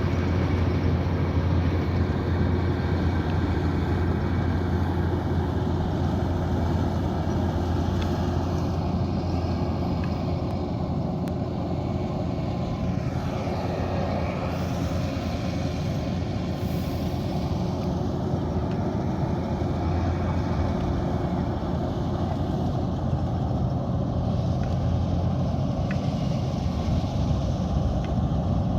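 Kubota DC108X combine harvester's diesel engine running steadily with a low, even drone.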